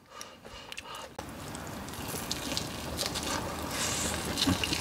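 A drink being poured steadily, starting about a second in and growing slowly louder, with a few small clicks.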